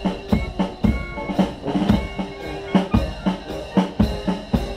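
Marching drum beat, bass drum and snare striking about two beats a second with a heavier beat about once a second, keeping time for troops marching in step.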